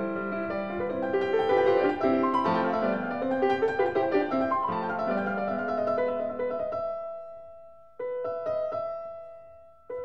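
Background solo piano music: a run of flowing notes that thins out after about seven seconds, then a single chord struck about eight seconds in and left to ring and fade.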